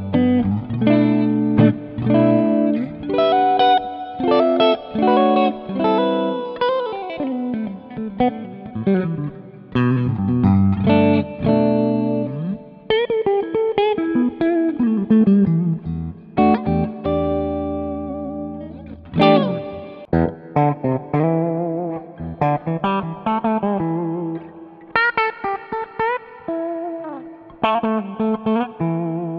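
Sqoe SEPRS 900 electric guitar with Alnico 5 humbuckers played on a clean tone, picked chords and single-note lines with some notes ringing out long. It is played on the neck and bridge pickups together, then on the bridge pickup alone later on.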